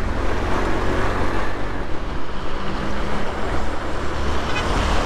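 Motorcycle running steadily while riding in traffic, its engine hum under a constant rush of wind and road noise.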